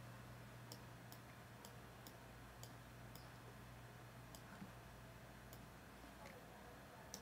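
Near silence with faint, scattered computer mouse clicks, about a dozen of them, most close together in the first half, as strokes are started with the mouse; a faint low steady hum underneath.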